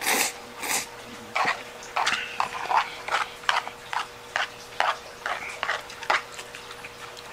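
Noodles of peperoncino pasta slurped loudly off a fork in two or three quick pulls, then wet open-mouthed chewing in short, even smacks about twice a second, over a faint steady hum.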